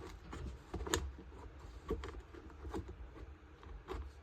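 Irregular light clicks and knocks of small leaf-blower engine parts being handled and fitted back together by hand, the sharpest about a second in and near the end.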